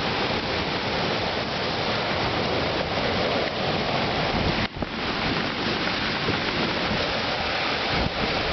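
Storm-force wind rushing steadily and buffeting the microphone, with a brief drop about halfway through.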